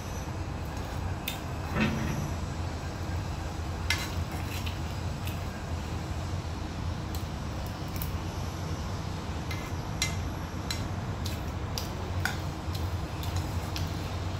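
Metal spoon clinking and scraping against a stone-coated nonstick frying pan as food is scooped out, a dozen or so separate short clinks, over a steady low hum.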